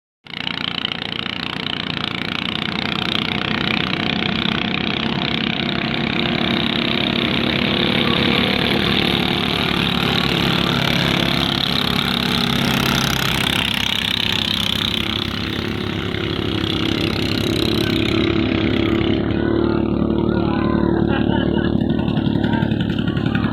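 Racing ketinting longtail-boat engine running steadily on test. About 18 seconds in, its sound loses its high hiss while the engine note carries on.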